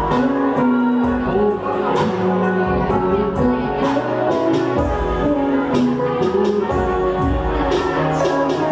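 A live band plays a pop song, with sustained guitar or keyboard notes over a moving bass line and a steady drum beat.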